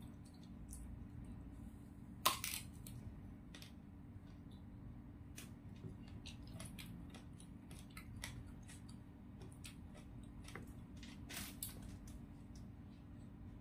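Close-miked eating sounds: a person chewing and handling food with the fingers, with small wet clicks and crunches scattered throughout and one sharper snap about two seconds in. A faint steady hum runs underneath.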